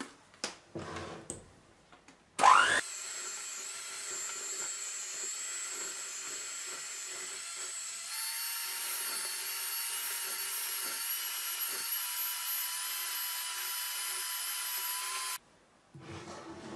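An electric hand mixer whipping chilled chocolate cream in a glass bowl. After a few handling clicks, it starts up with a rising whine about two and a half seconds in, then runs steadily. About eight seconds in its tone steps up to a higher pitch, and it cuts off suddenly near the end.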